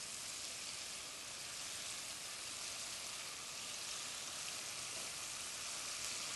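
Tapioca-flour-coated tofu pieces deep-frying in a wok of very hot oil: a steady, even sizzle.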